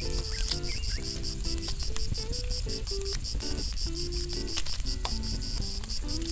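Crickets chirping in a steady, even pulse, about six chirps a second, with shifting lower tones underneath.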